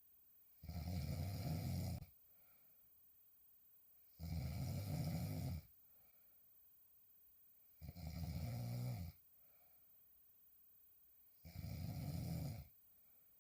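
A woman snoring while asleep on her back: four snores, each lasting a little over a second, coming about every three and a half seconds with quiet gaps between.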